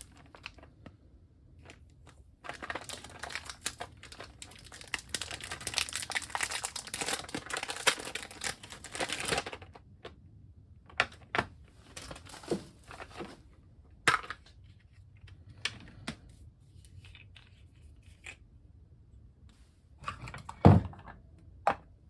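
Crinkling and crumpling of something being handled for several seconds, then scattered clicks and knocks, with one louder thump near the end.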